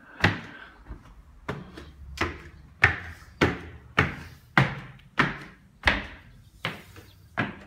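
Footsteps climbing hard stairs in an enclosed stairwell, a sharp step about every two-thirds of a second.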